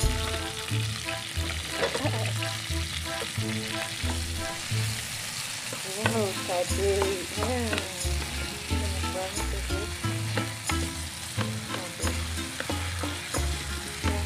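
Sliced green chillies, shallots and tomato sizzling in hot oil in a frying pan, with a spatula stirring and scraping the pan in scattered clicks.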